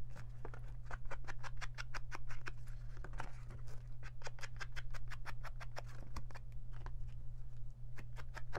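Foam ink blending tool dabbed quickly and repeatedly on an ink pad and on the edges of a paper card, several soft taps a second. A steady low hum sits underneath.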